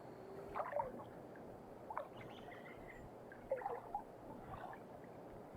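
Faint creek water: a few short splashes and sloshes over a steady background wash.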